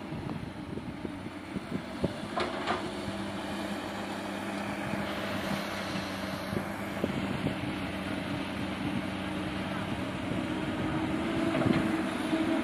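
Heavy diesel engine of earthmoving machinery running steadily, with a few short knocks and clanks about two seconds in and again near the end.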